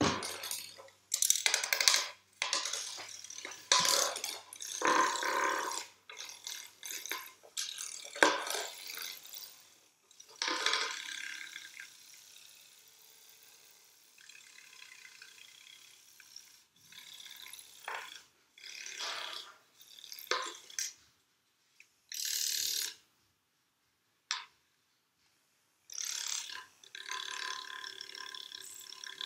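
A small bristle brush scraping and scrubbing across a card of written music in a box lid, in irregular strokes with short pauses between them.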